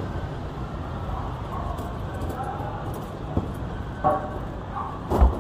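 Street traffic running steadily, with a few short knocks and a louder thump near the end.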